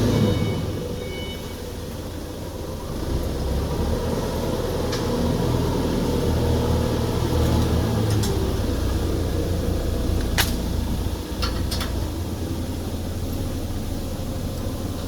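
Steady low hum of running machinery, swelling and easing, with a few sharp metallic clicks or knocks, the strongest about ten seconds in.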